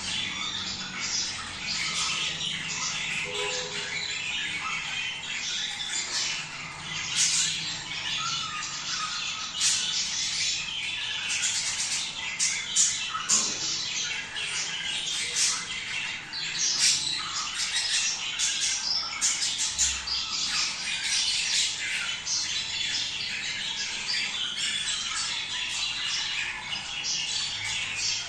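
A flock of budgerigars chattering, with many short calls overlapping continuously and sharp squawks scattered through: breeding-season flock chatter.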